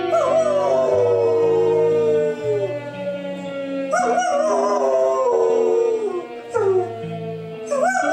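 A shepherd-type dog howling along to music, with long howls that slide downward in pitch. The howls start near the beginning, about halfway, and twice near the end, over music of long held notes that change in steps.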